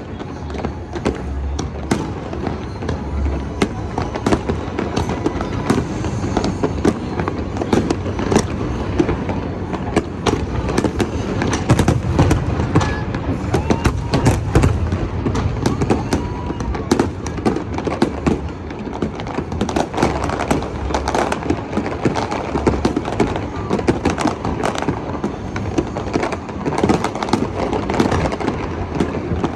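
New Year fireworks display: a dense, continuous run of bangs and crackling pops, busiest around the middle.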